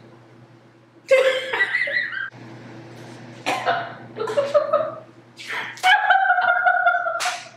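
Women laughing in short bursts, with a long high vocal sound held at one pitch about six seconds in, over a faint steady low hum.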